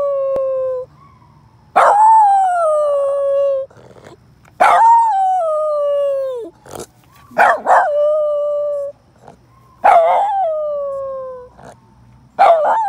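Miniature poodle howling: a run of about five long howls a couple of seconds apart, each starting sharply high and sliding down in pitch.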